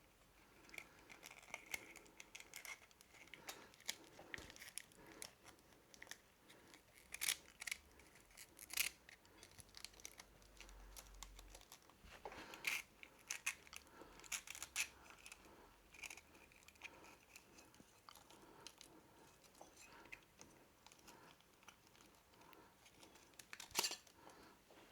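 Faint, intermittent rustling and scraping of split braided cable sleeving being worked over a wire with a small plastic feeding tool, with a few light clicks.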